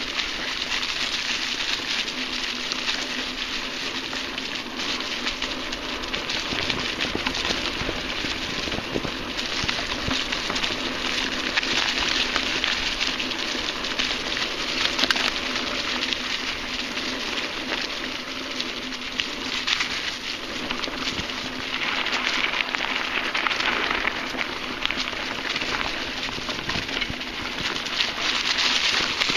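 Mountain bike tyres rolling over a trail thickly covered in dry fallen leaves: a steady, dense crackling rustle with scattered small clicks.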